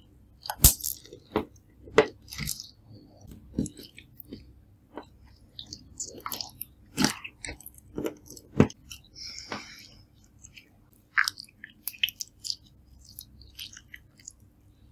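Clear slime being squished and kneaded by hand, making irregular sticky clicks and wet pops, a few of them louder.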